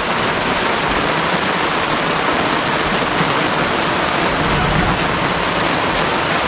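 Heavy rain falling, a steady, dense hiss.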